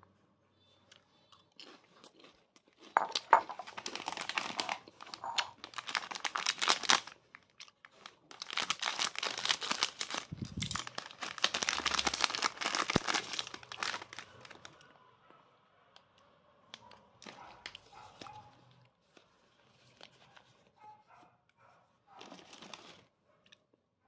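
Clear plastic food wrapper crinkling and tearing as it is pulled open by hand, in two long stretches of loud rustling, then quieter scattered crinkles and one more short burst near the end.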